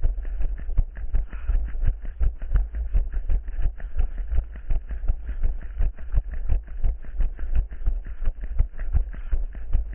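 Running footsteps of the orienteer carrying the camera, an even thud about three times a second, over a steady low rumble.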